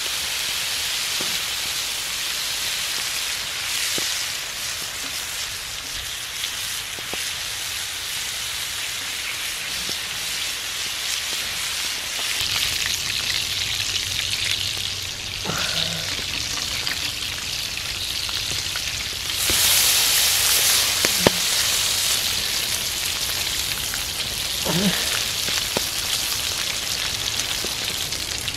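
Bacon sizzling on a hot griddle over a campfire: a steady frying hiss that swells loudest about two-thirds of the way through, with a few sharp pops.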